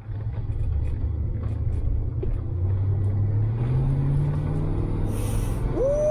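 1970 Buick Skylark Custom's four-barrel V8 pulling the car away, heard from inside the cabin: a low engine rumble that rises in pitch as the car accelerates. Near the end a man gives a drawn-out 'ooh'.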